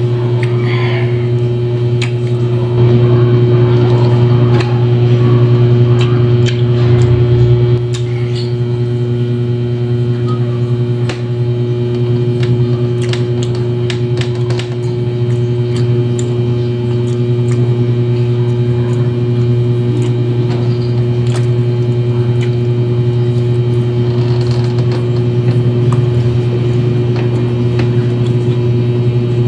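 A loud steady low hum runs throughout, with small clicks and wet mouth sounds of a man biting and chewing a banana and boiled egg over it.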